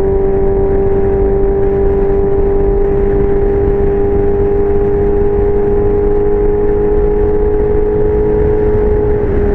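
Yamaha R6 inline-four with a Leo Vince aftermarket exhaust running at high, nearly constant revs, a steady buzzing note held throughout under a rush of noise.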